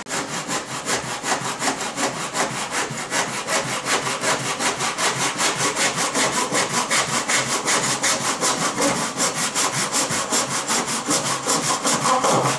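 Irwin tenon saw cutting a 45-degree mitre through pre-primed MDF architrave in a plywood mitre block, in quick, even back-and-forth strokes, several a second.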